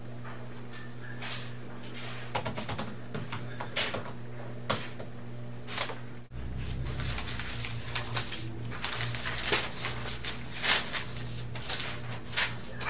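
Pen scratching on paper and sheets of paper rustling, with a steady low hum underneath. About halfway through, the paper handling becomes busier, with papers shuffled and tossed in a run of crackling rustles.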